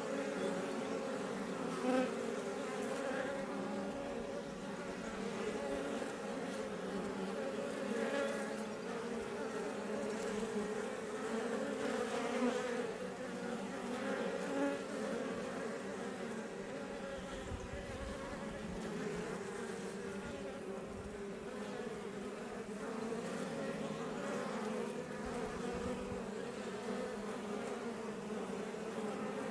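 Honey bees buzzing in a steady swarm-like drone at a Langstroth hive, with individual bees passing close now and then as brief louder buzzes.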